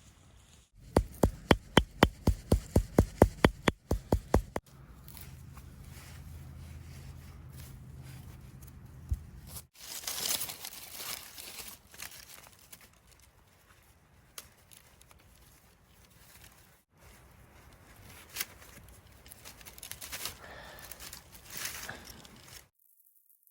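Bamboo grass being handled, its leafy stems rustling and tearing, with a fast run of about fourteen sharp knocks, roughly four a second, near the start.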